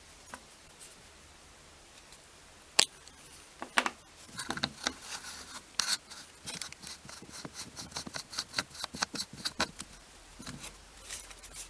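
Small hard plastic clicks from the lens being twisted on a Brinno BCC300 time-lapse camera body. One sharp click comes about three seconds in, followed by a rapid run of ticking and clicking from about four seconds to near the ten-second mark.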